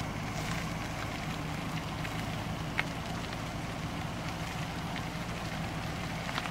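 A vehicle engine running steadily with a low hum, under a noisy haze with a few faint scattered clicks.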